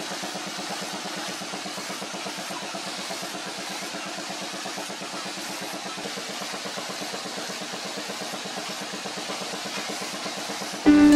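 Angle grinder running its disc against the steel of a forged trident's tines, a steady grinding whirr with a fast, even flutter. Plucked-string music cuts in just before the end.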